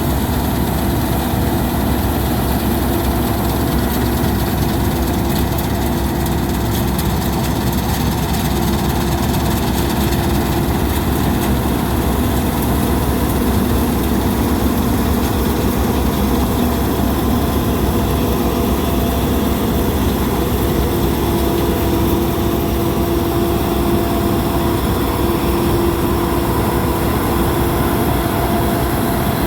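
Combine harvester running steadily, a loud, even machine drone with a few steady whining tones over it, one of them growing stronger in the second half.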